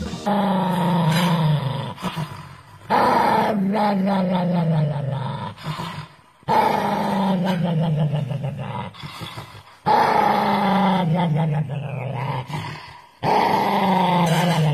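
A dog growling: five long growls, each starting suddenly and sinking in pitch over two to three seconds, with short breaks between them.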